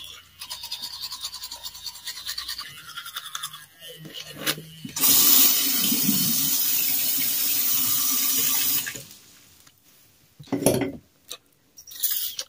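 Teeth being brushed with a toothbrush for the first few seconds. A tap then runs steadily for about four seconds, loud and even, followed by a few short splashes near the end.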